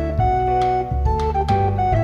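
Background music: an instrumental track with sustained keyboard-like notes over a bass line and a steady beat.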